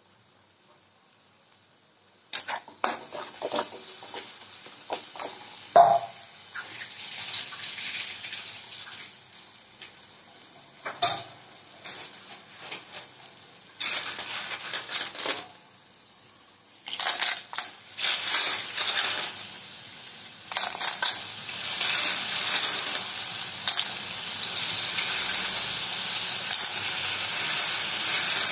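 Metal spatula clinking and scraping in a pan while a paste of ground onion, garlic and ginger fries in oil. The sizzling swells in the last third into a loud, steady sizzle, with whole snails in their shells frying in the pan by the end.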